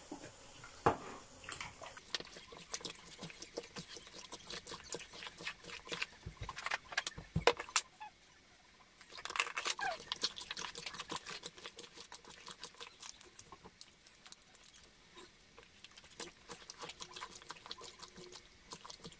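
Hands working raw chicken wings with seasoning and barbecue marinade in a plastic bowl: wet, sticky clicking and squelching of the meat, with a couple of sharper knocks about a second in and near the middle.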